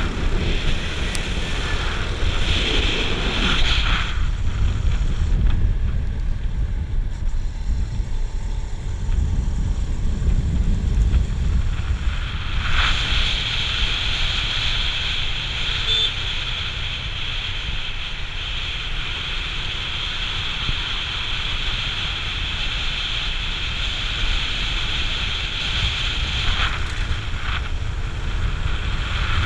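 Wind buffeting the rider's camera microphone on a moving motorcycle: a heavy, steady rumble with a hiss over it. The motorcycle's engine and tyre noise run underneath.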